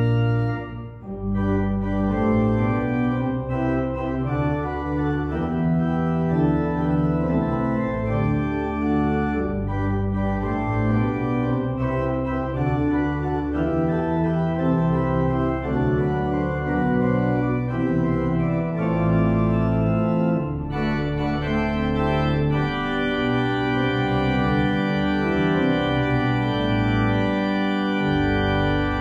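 Church organ playing slow, sustained chords over held bass notes, with a short dip about a second in.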